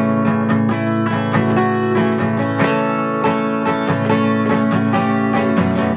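Music: acoustic guitar strummed in a steady rhythm, in an instrumental passage between sung lines of a rock song.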